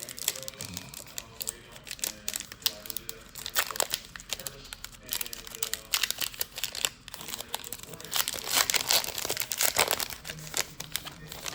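Trading-card pack wrapper crinkling as cards are handled, a run of irregular crackles that grows densest near the end.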